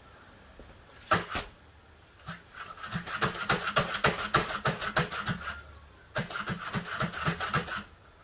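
29cc two-stroke engine of a 1/5-scale Losi 5T RC truck being pull-started: rapid rhythmic puffs, about six a second, in two pulls of two to three seconds each, after a single knock about a second in. The engine turns over without catching; the pull starter's recoil spring is stretched and gives too little cord.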